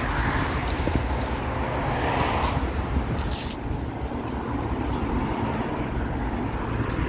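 Steady low rumble of city traffic, with a few brief rustles about two and three and a half seconds in.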